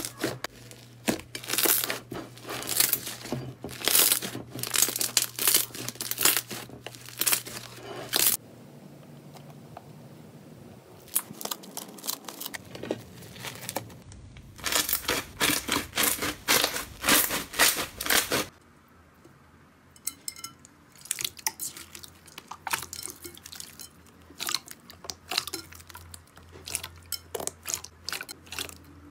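Hands squeezing and pressing slime, giving dense runs of crackling and popping as trapped air bursts out. Two loud stretches are split by a quieter one, and the popping thins out near the end.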